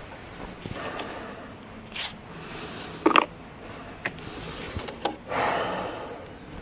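Light knocks and clicks of things being handled on a wooden picnic table, the loudest a close pair of sharp knocks about three seconds in, then a short rustling noise just after five seconds.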